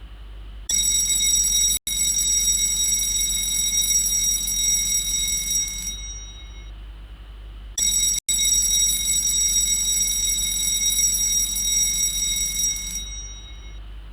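Electric fire alarm bell ringing, the fire-evacuation signal, in two long rings of about five seconds each with a short pause between.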